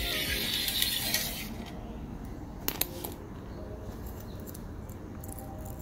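Metal hardware sliding along the channel of an aluminium mounting rail on a diamond-plate tent floor, a rasping scrape for about the first second and a half. Two light metallic clicks follow near the middle.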